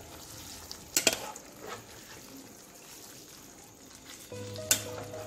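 Metal spatula stirring curry in a nonstick frying pan, over a light sizzle, with sharp clacks of the spatula against the pan about a second in and again near the end.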